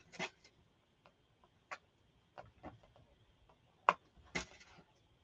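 Irregular light clicks and taps, with a couple of brief rustles, from craft materials being handled; the sharpest click comes about four seconds in.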